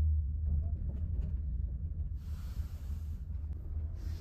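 Steady low rumble inside a car on the road. A hiss comes over it about two seconds in, lasting about a second, and again briefly near the end.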